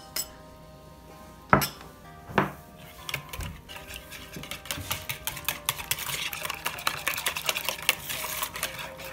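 Wire whisk beating an egg, milk and cream mixture in a mixing bowl: a fast run of light clicks and scrapes that picks up about three seconds in and grows busier. Two sharp knocks come first, under a second apart.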